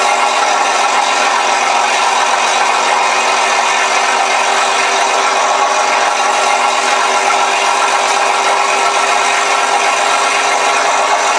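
Simulated P-51 Mustang piston-engine sound from an RC model's ShockWave sound module, played loud through two small 4-inch speakers inside the airframe. It runs steadily without revving up or down, harsh and thin with no deep bass.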